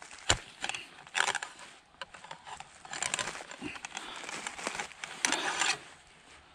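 Ramrod working in the barrel of a CVA Accura .50-calibre muzzleloader, with a sharp click just after the start, then three noisy sliding strokes about two seconds apart.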